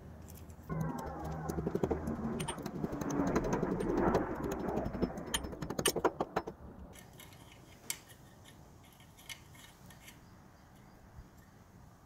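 Clattering and a run of sharp taps from a hammer driving plastic wall anchors into drilled holes in brick, busiest over the first six seconds or so, then only a few scattered clicks.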